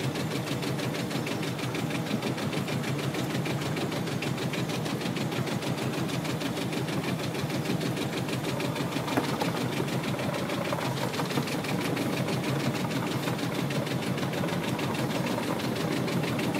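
Small fishing boat's engine running steadily with a rapid, even knock as the pot hauler winches in the line of a lobster pot.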